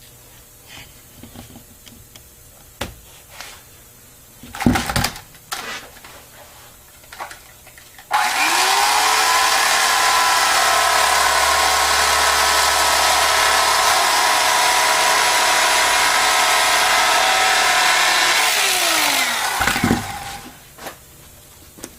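A handheld electric power tool runs steadily for about eleven seconds, its motor audibly spinning up at the start and winding down at the end, after a few light handling knocks.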